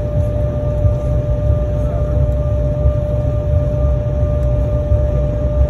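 Jet airliner cabin noise while taxiing: a steady low rumble with a constant mid-pitched hum.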